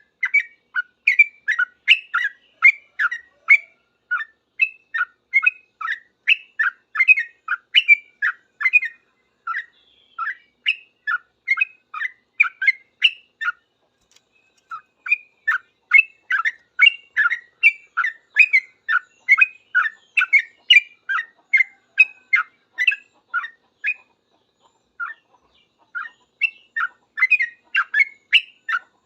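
Yellow-vented bulbul (trucukan) singing its rapid, noisy 'ropel' song: a fast run of short, chirpy notes, about three a second, broken by a few brief pauses.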